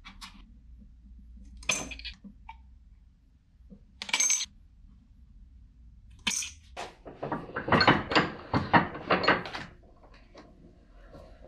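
Tin snips cutting thin sheet metal: a few separate crisp snips spaced a second or two apart, then a dense run of rapid metallic clicks and clinks for about three seconds, the loudest part, before it tails off into faint ticks.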